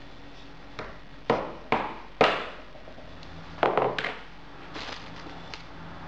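Sharp knocks and taps on a hard worktop during leatherwork: a handful of separate strikes, the loudest about two seconds in, a quick pair near the middle, then a few faint taps.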